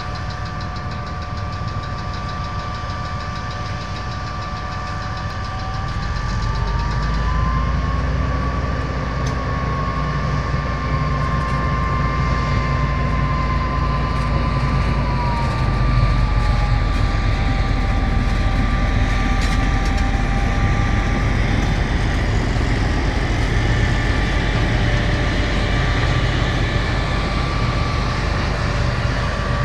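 MÁV class M62 diesel locomotive's two-stroke V12 engine idling, then opening up about six seconds in with a rising whine. It runs loud and hard under load as it pulls its passenger train away from the station.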